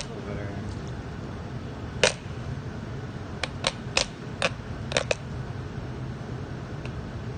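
Steady hum of a bakery deck oven running, with several sharp clicks, most of them between two and five seconds in.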